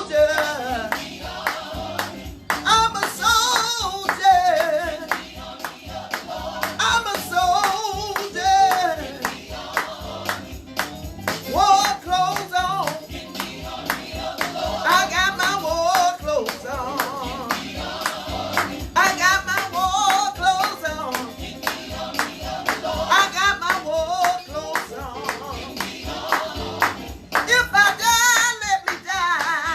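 Recorded music: a song with a singing voice over instruments, including plucked strings.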